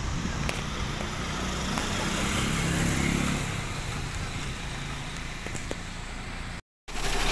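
A road vehicle's engine passing, swelling and fading over a couple of seconds against steady road noise. The sound cuts out completely for a moment near the end.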